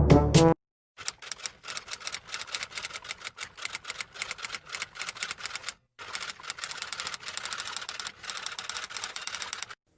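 A brass fanfare cuts off about half a second in. Then typewriter keys clack in quick irregular runs, with a brief pause midway.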